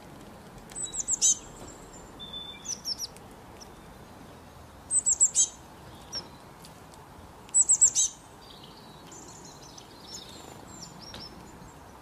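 Small songbird calling: three bursts of three or four quick, high chirps that slur downward, with softer high chirps in between.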